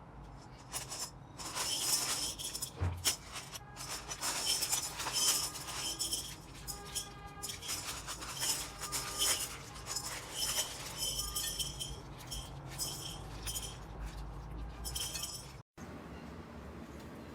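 Slime being pressed and worked by hand, giving a dense run of crackles, pops and clinks that cuts off abruptly near the end.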